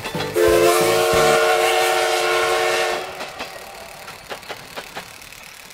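A steam train whistle sounds several tones at once, held for about two and a half seconds, then cuts off sharply. Fainter scattered clicks follow.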